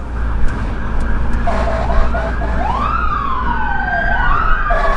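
Fire engine siren on an emergency run. A rapidly pulsing tone starts about a second and a half in and returns near the end, and between them come long wails rising and falling in pitch, all over a steady low engine rumble.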